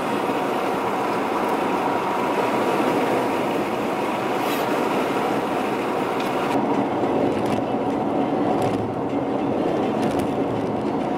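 Steady road and tyre noise heard from inside a moving car, a constant rumbling hiss with a faint engine hum underneath.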